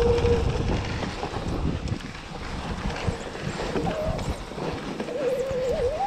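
Electric mountain bike descending snowy singletrack, tyres and frame rattling over bumps in a steady low rumble. A squeal, typical of disc brakes being applied, sounds briefly at the start and returns wavering in pitch from about four seconds in.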